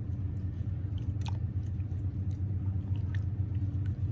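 Hands working chicken pieces in a spice marinade, with soft, scattered wet squelches and ticks over a steady low hum.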